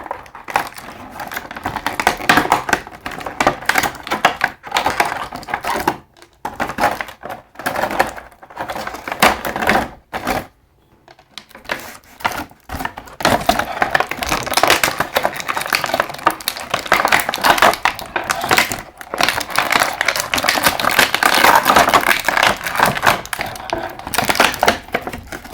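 Crinkling plastic packaging and small hard plastic parts clicking and knocking, from the hands-on unboxing of an action figure. The handling is continuous, with two brief pauses.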